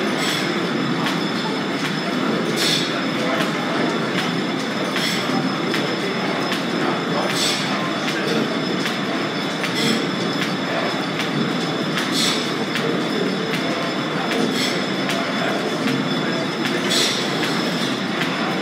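Belt-driven line shafting running: flat belts turning overhead pulleys and wheels make a steady mechanical clatter and rumble with a thin high squeal. A sharper squeak-click comes round about every two and a half seconds.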